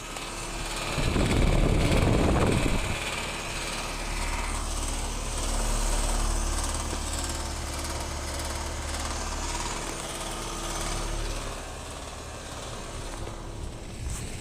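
Outdoor air-conditioning condensing units running with a steady mechanical hum and fan drone. A louder gust of wind noise hits the microphone about a second in.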